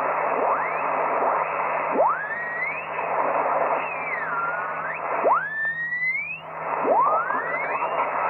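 Yaesu FT-7B transceiver being tuned across the 40-metre band: steady band hiss and static, with whistling tones that slide up and down in pitch as the tuning knob sweeps past signals, about five glides in all.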